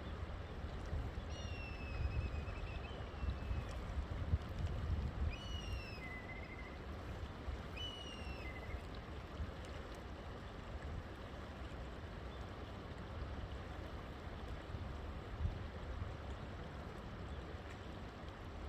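River water flowing steadily with a low rumble. Through the first half, a bird gives four short, descending whistled calls.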